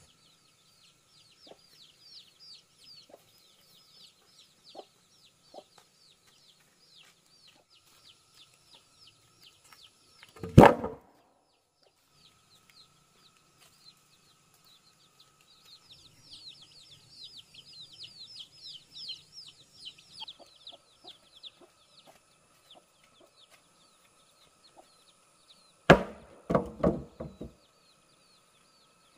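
Chickens calling: one loud short call about ten seconds in and a quick run of several calls near the end, over a faint, fast, high chirping.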